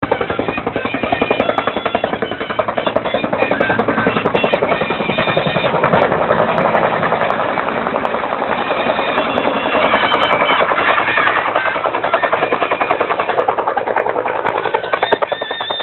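Helicopter rotor blades beating in a fast, even chop as the helicopter flies low and comes down to land.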